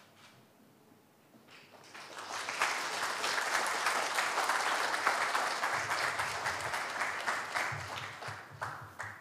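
Audience applauding: the clapping starts about two seconds in, swells, and dies away near the end.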